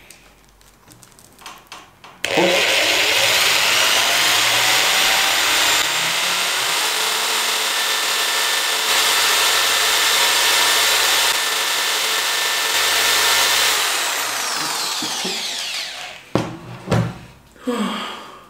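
Corded electric drill starting about two seconds in and running steadily at full speed while boring into the edge of a wooden block to make heat by friction, then winding down over a couple of seconds. A few short, loud sounds follow near the end.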